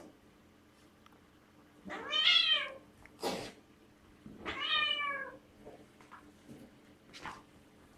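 Siamese cat giving two long meowing yowls about two seconds apart, each rising then falling in pitch, with a short rasping burst between them: angry calls during a fight with another cat.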